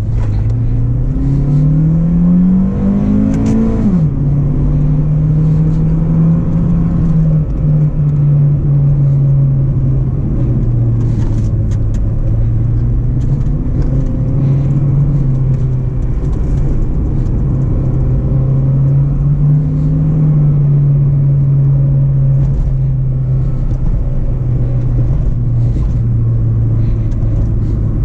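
2005 Acura RSX Base's 2.0-litre four-cylinder engine heard from inside the cabin, revving up under acceleration for about four seconds. It drops sharply as the automatic gearbox upshifts, then pulls steadily with small rises and falls in pitch over road noise.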